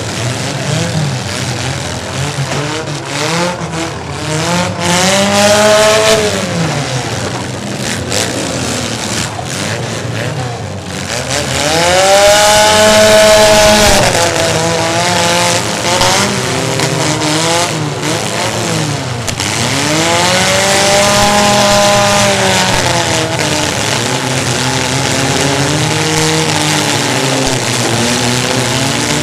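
Demolition derby cars' engines revving hard, several at once, their pitch repeatedly climbing and dropping as the drivers floor it and back off, with some tire squeal.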